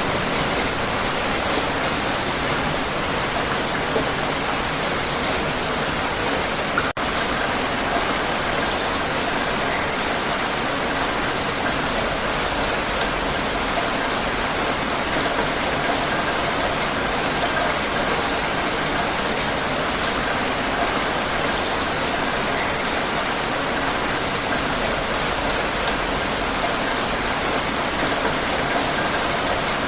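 Heavy rain falling steadily, a dense even hiss of many drops, with a momentary dropout about seven seconds in.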